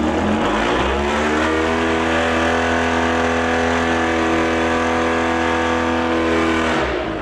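Motorcycle engine of a mini pulling tractor revving hard under load during a burnout, its hard-rubber pulling tyres spinning on the pad while the tractor is chained in place. The revs climb over the first couple of seconds, hold high and steady, then drop off sharply near the end.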